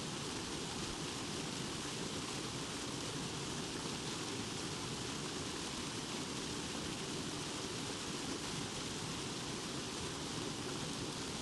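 Waterfall: falling water making a steady, unchanging rush.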